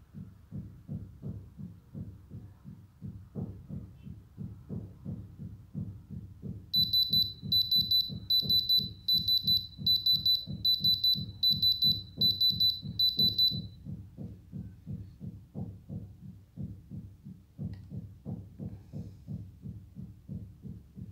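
Diamond Selector II tester pen beeping, a series of about ten short high beeps over some seven seconds, starting about a third of the way in, with its probe on a stone: the tester's signal for a diamond reading. A low pulsing, several beats a second, runs under it.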